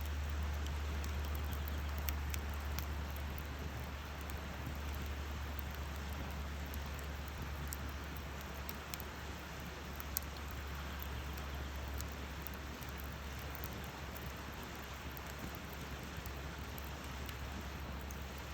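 Wood campfire burning: a steady hiss with scattered sharp crackles and pops over a steady low rumble, with a louder pop about ten seconds in.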